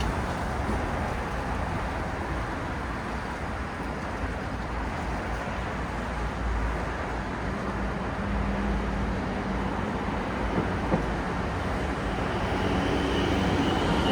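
City road traffic: a steady wash of passing cars and engines, getting louder near the end as a few steady tones come in.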